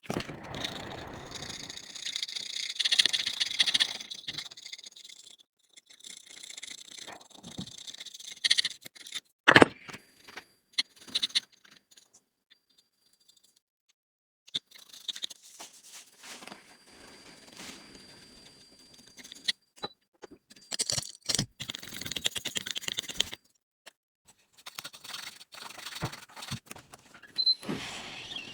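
Small metal hand tools scraping and clicking against a phone's parts in irregular bursts, with a few sharp taps and a brief silent pause.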